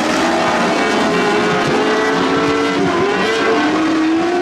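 Several winged lightning sprint cars racing on a dirt oval, their engines running together as overlapping notes. One note drops and then climbs again about three seconds in.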